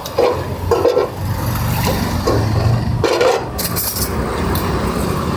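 Road traffic: a motor vehicle's engine running close by, a low steady hum that swells about two seconds in, with a few light clinks of steel utensils.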